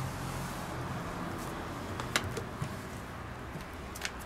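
A spoon stirring goulash in a cast-iron Dutch oven, with a sharp clink of metal on the pot about two seconds in and a fainter one near the end, over a steady background hum.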